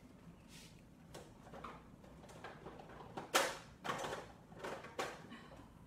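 Rummaging through craft supplies: a series of knocks and clatters as objects are moved about, the loudest about three seconds in.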